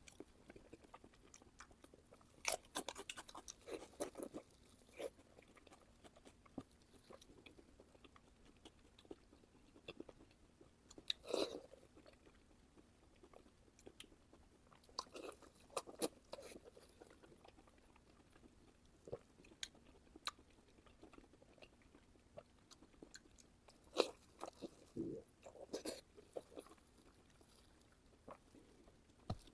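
A person chewing and biting into large pieces of pork belly close to the microphone, in clusters of clicky, crackly mouth sounds with short quiet gaps between.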